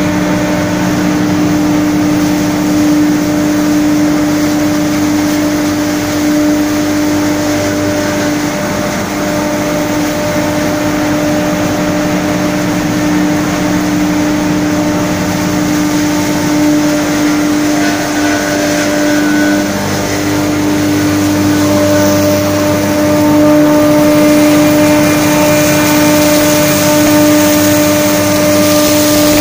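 Straw bale crushing and grinding machine, a rotary tub cutter combined with a hammer mill, running and shredding straw: a loud, continuous hum with a rushing noise over it, growing a little louder over the last few seconds.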